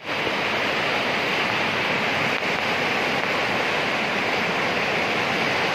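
Whitewater river rapids rushing over boulders: a steady rush of churning water.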